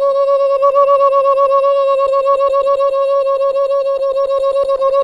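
A person holding one steady high-pitched tone with the voice or mouth, with a rapid flutter of about eight to ten pulses a second.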